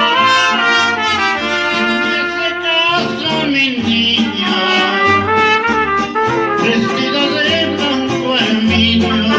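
Mariachi band playing live: trumpets and violins over guitar, vihuela and a guitarrón bass line keeping a steady beat, with a man singing into a microphone.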